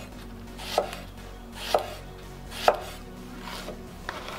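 Broad kitchen knife slicing eggplant into rounds on a wooden cutting board: three cuts about a second apart, each a short slicing hiss ending in a sharp knock of the blade on the board, with a lighter tap near the end.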